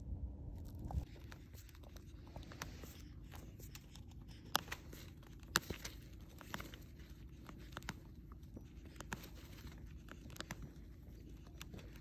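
A falcon tearing and plucking at a freshly caught bird: scattered small clicks and soft tearing of feathers, over a low steady rumble.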